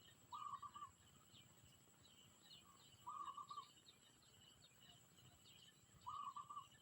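A bird gives a short call of several quick notes three times, about three seconds apart, over faint higher chirping.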